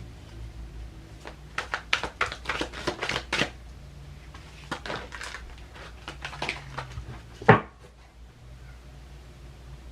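A deck of tarot or oracle cards being shuffled and handled, giving two runs of quick sharp flicks and taps and one louder thump about seven and a half seconds in.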